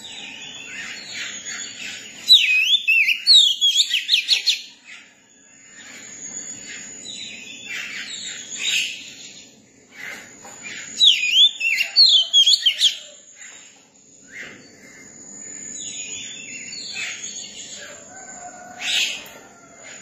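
Oriental magpie-robin singing in bouts of varied whistles and quick notes, with two loud runs of rapid notes, a few seconds in and again about halfway through. A steady thin high tone runs underneath.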